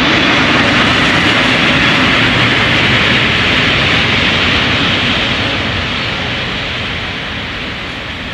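ET41 twin-section electric locomotive running light past the camera: a loud rushing noise that is strongest in the first half, then fades steadily as the locomotive draws away.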